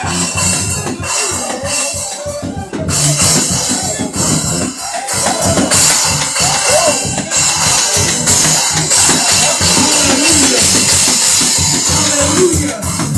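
Loud live church music with a drum kit playing a steady beat.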